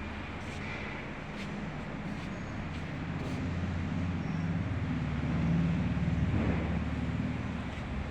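End mill grinder's electric motor running with a steady low hum, growing a little louder for a second or two past the middle, then easing back.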